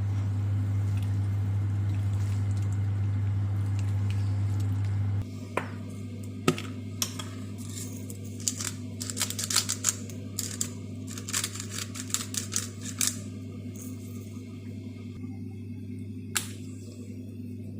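A steady low hum from an appliance cuts off about five seconds in, followed by a run of light clicks and clatter of kitchen handling, with one last click near the end.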